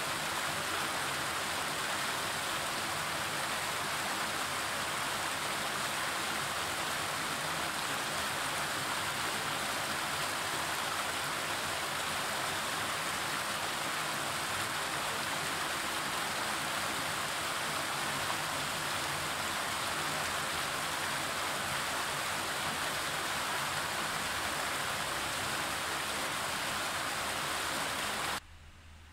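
Shallow river running over rocks: a steady rushing of water that stops suddenly near the end.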